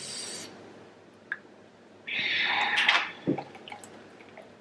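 A hiss fades out at the start. About two seconds in comes a loud slurping sip of ice water from a glass, about a second long, followed by a few faint clicks of ice.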